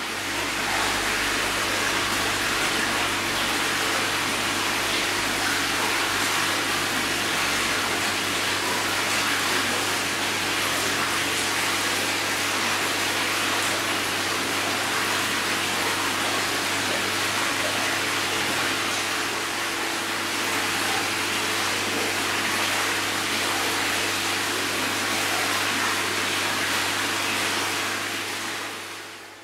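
Steady rush of running water with a constant low hum beneath it, from a koi holding tank's pump and water flow, fading in at the start and out near the end.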